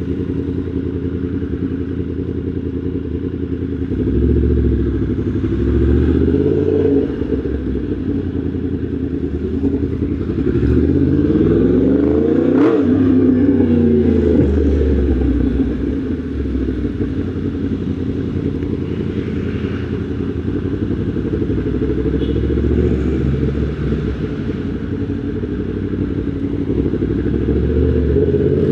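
Yamaha MT-10 SP's crossplane inline-four engine running while riding, its revs rising and falling several times as it accelerates and eases off. Around the middle the revs drop low and then climb again.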